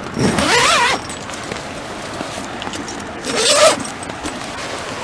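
A tent door zipper being pulled open in two strokes, the first about a second long, the second shorter about three seconds in, each a rasp that wavers in pitch with the pull. Rain hisses steadily on the tent throughout.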